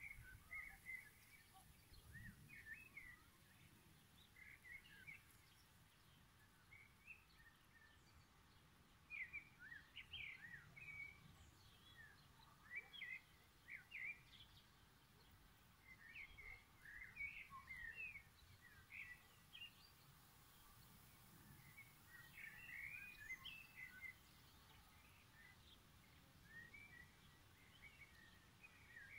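Faint birdsong: short chirps and twitters from small birds, coming in loose clusters throughout over a quiet outdoor background.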